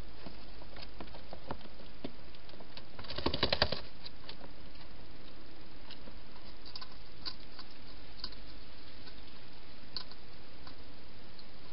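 Wild hedgehog eating from a bowl inside a plastic feeding box: scattered small crunching clicks, with a quick run of louder crunches about three seconds in, over a steady hiss.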